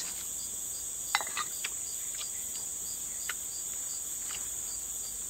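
Steady high-pitched buzzing of insects, with a few light clicks of a metal spoon against a porridge bowl between about one and three seconds in.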